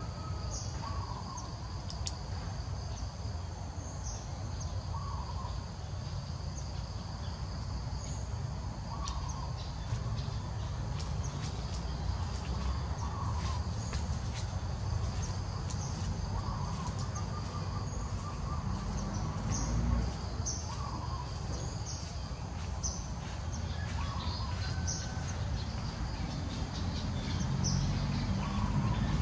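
Outdoor woodland ambience: a bird giving a short call over and over, every second or two, with higher chirping above it and a low steady rumble underneath.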